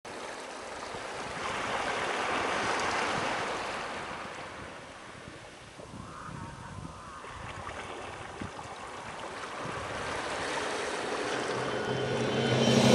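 Small waves washing up on a sandy beach, the surf swelling and falling back, then building again toward the end.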